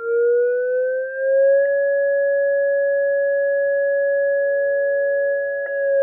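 Computer-generated siren tone, two pitches sounding together, played through a horn loudspeaker driven straight from a computer's audio port without an amplifier. It rises in pitch for the first second or two, then holds steady, with a short click, a skip in the sound file, twice.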